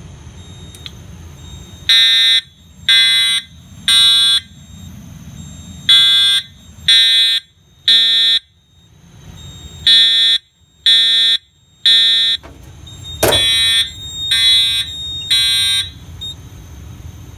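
EST Integrity horn strobe (757-3A-T) sounding the temporal-3 fire alarm pattern, set to code 3, low volume: three beeps, a pause, repeated four times. It was set off by testing the smoke detector with a magnet. A sharp knock comes just before the last round of three.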